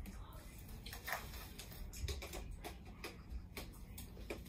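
A camera shutter clicking, a dozen or so faint, sharp clicks at an uneven pace of two or three a second, as photos are taken during a photoshoot.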